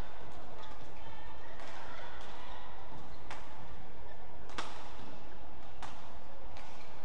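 Badminton rackets hitting a shuttlecock in a doubles rally: three sharp hits about a second and a quarter apart, over steady sports-hall noise.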